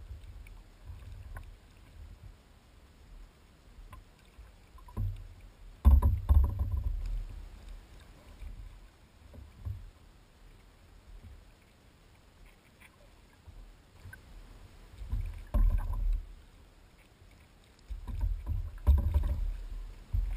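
Sea kayak riding open ocean swell, with water slapping and knocking against its hull in irregular low, dull bursts. The loudest come about six seconds in and again near the end.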